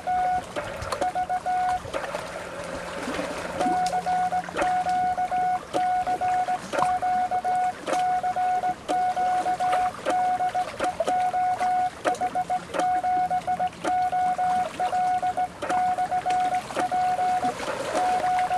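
Morse code (CW) from a Kenwood TS-130S transceiver's speaker: a steady beep of about 700 Hz keyed in dots and dashes, with short gaps between characters, over light hiss and occasional clicks.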